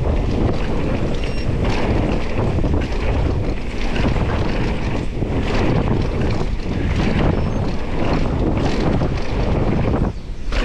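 Wind buffeting the microphone during a fast mountain-bike descent, over a steady low rumble of the tyres rolling on the dirt trail. The noise dips briefly near the end.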